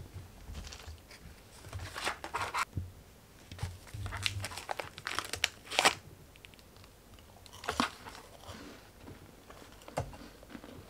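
Plastic wrapper of a packet of Ritz vanilla-cream sandwich crackers crinkling and crackling as it is handled, in short irregular bursts, with crunching as a cracker is bitten.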